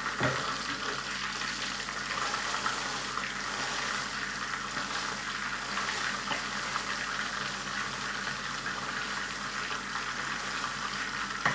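A beef burger patty frying in a pan, sizzling and crackling steadily in the hot fat.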